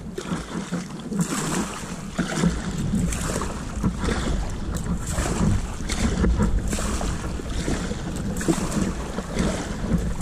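Water splashing and lapping around a sea kayak as it is paddled, in irregular washes, with wind rumbling on the microphone.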